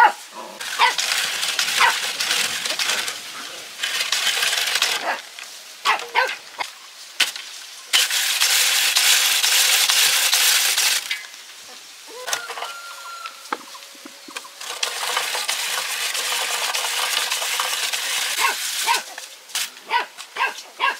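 Dog barking in short, scattered yelps, between long stretches of a loud, steady rushing noise.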